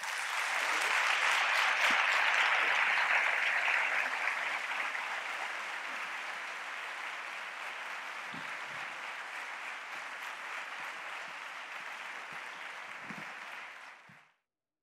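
Theatre audience applauding a concert orchestra, loudest in the first few seconds and then steady, cutting off suddenly near the end.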